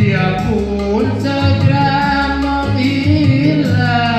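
Live amplified band music: a singer at a microphone, with an electronic keyboard accompaniment carrying sustained chords and a bass line.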